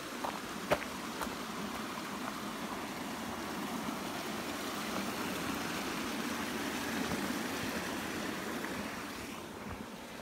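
Running water of a stream, rushing steadily, growing louder through the middle and fading near the end. A few light clicks come in the first second, one of them sharp.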